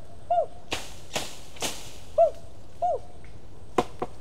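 Three quick whooshing swishes about half a second apart, among short repeated bird calls, with a couple of sharp clicks near the end.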